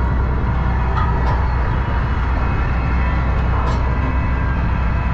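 Tractor engine running steadily as it tows a water-filled land roller drum over loose dirt, with a few faint ticks about a second in and again near the end.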